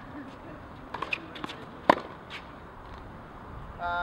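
Tennis racquet striking a ball on a return of serve: one sharp pop about two seconds in, with a few fainter knocks about a second in and a brief squeak near the end.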